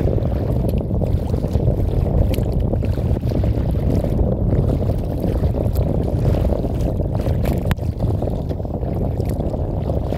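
Wind buffeting a phone microphone mounted on the bow of a kayak out on open harbour water: a steady, heavy low rumble, with faint light splashes of water now and then.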